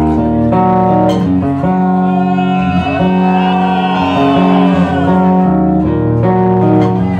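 Live rock band playing: a round-back acoustic-electric guitar strums sustained chords over bass, entering at the start after a brief lull, with a wavering higher melody line over the middle few seconds.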